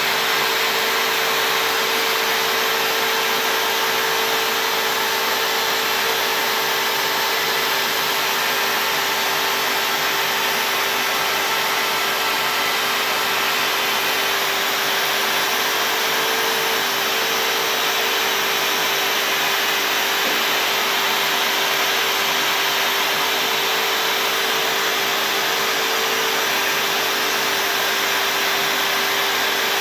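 CNC router spindle running with a steady whine as its bit carves letters into a white-faced board, over the rush of a dust-extraction vacuum drawing through a hose at the spindle.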